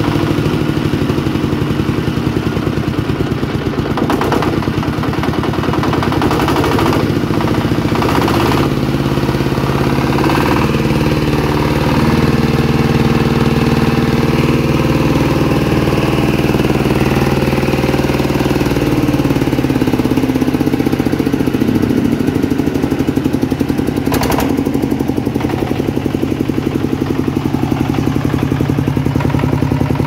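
Dongfeng S1135M single-cylinder diesel engine running steadily with a rapid, even chug. Its speed shifts a few times, and a few sharp knocks stand out, while it is being checked for a strange noise.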